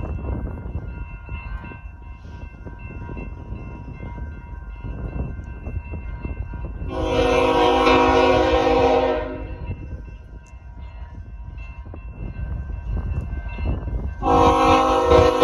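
Air horn of a BNSF freight train led by a GE ES44C4 locomotive, sounding long blasts for the grade crossing: one lasting over two seconds about seven seconds in, and another starting near the end. Under them the crossing signal bells ring steadily.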